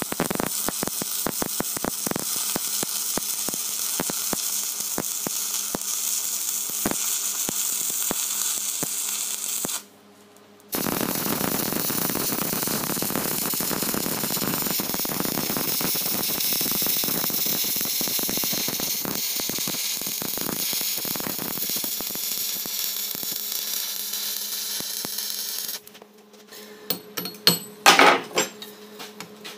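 Electric arc welding crackling steadily through a 70-amp capping run. The arc breaks off for under a second about ten seconds in and restrikes, then stops near the end, followed by a few sharp metal clinks.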